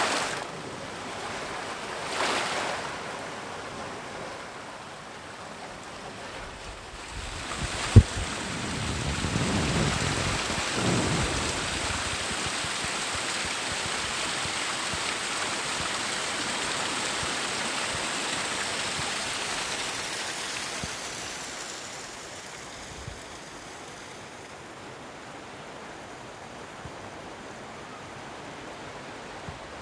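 Sea waves breaking on the shore: a wave comes in about a third of the way through with a low rumble, and its rushing wash runs on for about ten seconds before dying down to a quieter hiss. A single sharp knock sounds just before the wave breaks.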